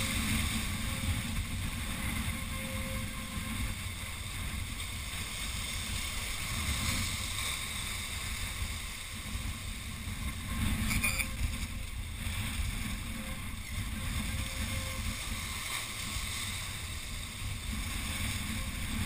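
Wind rumbling on an outdoor camera microphone, with surf washing and breaking against jetty rocks.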